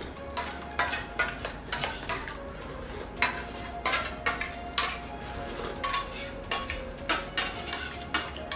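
Steel spoons clinking and scraping against stainless-steel plates during fast eating, in short irregular strokes several times a second.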